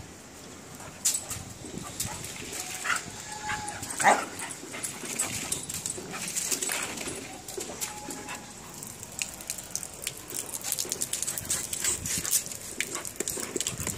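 Rottweiler puppy playing, giving a few brief whines among scattered clicks and scuffles, which come thicker in the second half.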